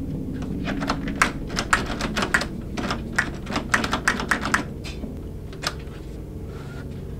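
A run of rapid, irregular clicks and knocks at a door, several in quick succession for about five seconds, over a steady low drone.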